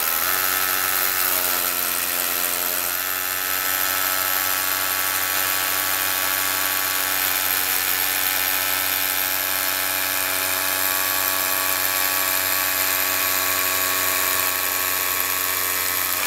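Milwaukee M12 cordless rotary hammer drilling a 5/32-inch hole into a concrete wall, running steadily without a pause; its tone shifts slightly about three seconds in.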